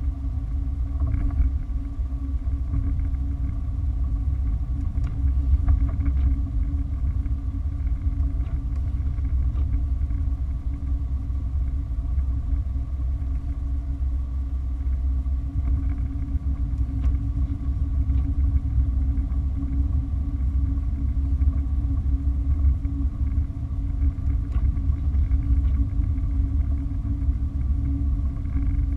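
A car driving, with a steady low rumble of road and engine noise and a constant hum over it.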